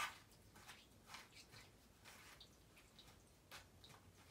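Near silence with faint, scattered wet ticks and squishes: sticky glitter slime being stirred in a bowl with a wooden craft stick while liquid is poured into it. A single sharp click comes right at the start.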